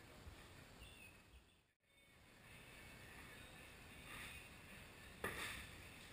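Near silence with faint hiss, broken by a single sharp click a little after five seconds in.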